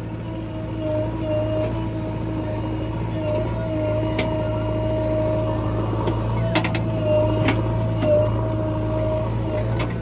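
JCB excavator's diesel engine running steadily, with a wavering whine over it and several sharp knocks in the second half.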